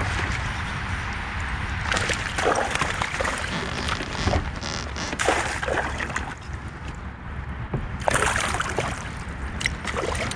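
Water sloshing and splashing against a fishing kayak in irregular bursts, over a steady low rumble.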